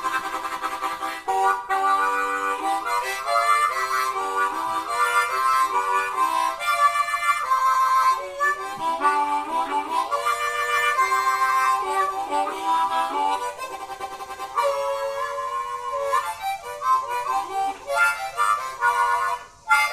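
Harmonica played solo, a run of shifting chords and single notes with bent pitches.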